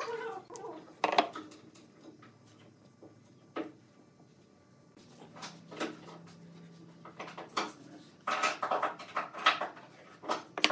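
Hardwood blocks knocking and clacking against one another and the board as they are fitted into a glued stack. A few single sharp knocks are followed near the end by a quick run of clatter.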